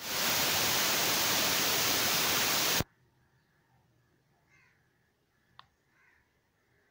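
Loud, steady hiss, even from low to high, that cuts off abruptly about three seconds in. After it there is only faint room sound and a single faint click.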